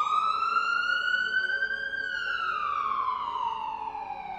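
Fire engine siren wailing: one slow cycle, rising in pitch for about two seconds, then falling for about two and a half.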